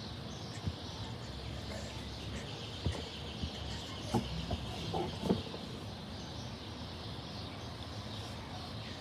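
Steady outdoor city ambience: a low hum of distant traffic with a faint high hiss. A few short bumps and handling sounds come close to the microphone between about three and five seconds in.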